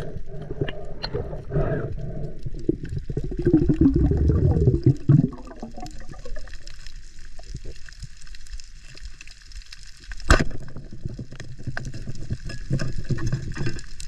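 Water gurgling and bubbling close to the microphone, loudest a few seconds in, with one sharp knock about ten seconds in.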